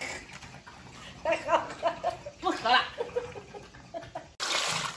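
A woman laughing in a run of short pitched bursts. Near the end the sound cuts suddenly to a steady rush of running water.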